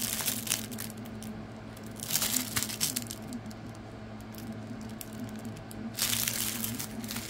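Small plastic bags of diamond-painting drills crinkling as they are handled, in three bursts: at the start, about two seconds in, and again near the end. A steady low hum runs underneath.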